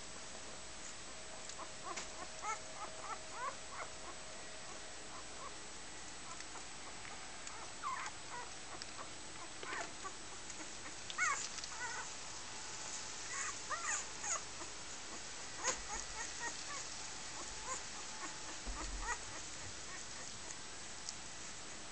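Newborn Dalmatian puppies squeaking and whimpering while they nurse: short, high squeaks come singly and in little clusters, busiest in the middle stretch.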